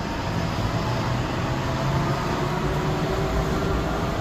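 Steady rumbling noise of a vehicle in motion, even throughout, with a few faint steady tones over it.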